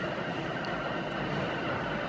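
New York City subway train running along the track: a steady rumble of wheels on rails with several steady high tones above it.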